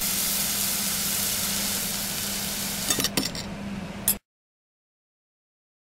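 Food sizzling as it fries in a pan on a stove: a steady hiss over a faint low hum, with a few clicks near the end. The sound cuts off abruptly about four seconds in, leaving dead silence.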